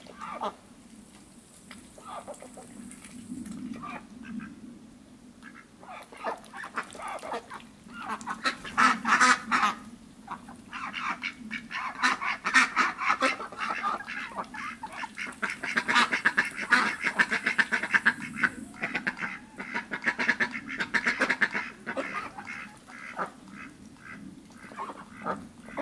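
Indian Runner ducks quacking. The calls are sparse at first, then build from about eight seconds in into a loud, rapid run of overlapping quacks, and thin out again near the end.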